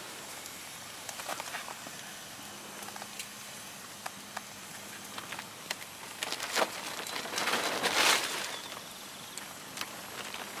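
Small wood campfire crackling under a cast iron skillet: a steady low hiss with scattered sharp pops, and a louder rushing hiss lasting about a second around eight seconds in.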